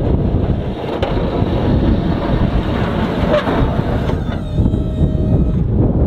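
Pickup truck with a Boss DXT V-plow driving up close and pushing snow, under a heavy low rumble of wind on the microphone; a few faint steady tones come in about four seconds in.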